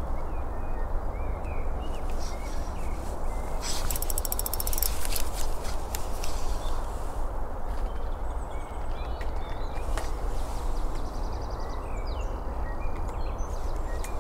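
Spinning reel being wound to retrieve a lure, with a quick run of rapid ratcheting clicks about four seconds in, over a steady low rushing noise. Small bird chirps come through faintly.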